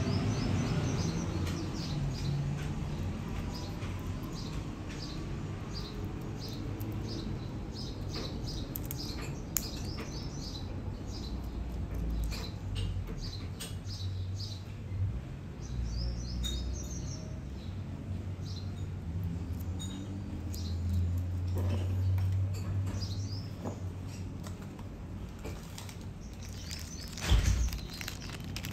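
Hands handling a smartwatch and its packaging: scattered small clicks, rustles and short high squeaks of material rubbing, over a low hum, with one sharp knock near the end.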